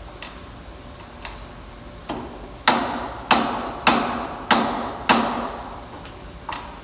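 Hammer lightly tapping a large socket to drive a new seal into a track-wheel bearing bore: a couple of scattered taps, then five evenly spaced strikes a little over half a second apart, each with a short ring, and one more faint tap near the end.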